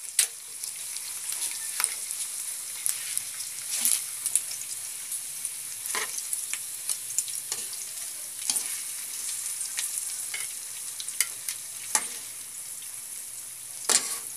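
Pork tocino sizzling in oil in an aluminium wok, already cooked through, with a steady high hiss. Metal tongs click and scrape against the pan every second or two as pieces are picked up.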